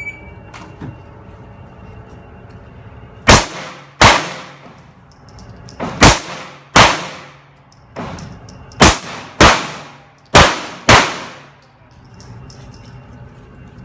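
A shot timer's start beep ends just at the start. Then a Walther P99 pistol fires eight shots in four quick pairs (double taps), each pair well under a second apart, with one to two seconds between pairs. Each shot rings out with an echoing tail.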